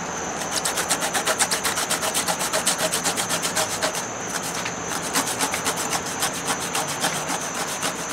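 Pickling cucumber being grated on a long rasp-style zester into a bowl: quick rhythmic rasping strokes, several a second, easing off about four seconds in.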